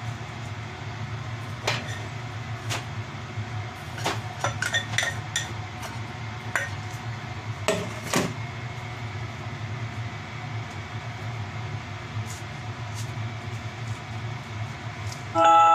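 Light clinks and knocks of kitchen utensils and dishes, scattered and thickest in the middle, over a steady low hum. Just before the end, loud chiming mallet-percussion music starts.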